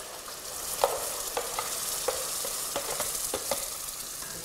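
Hot oil with sautéed onion and garlic sizzling in a metal pot as pumpkin purée is poured in, then stirred with a metal spoon that clinks sharply against the pot about eight times.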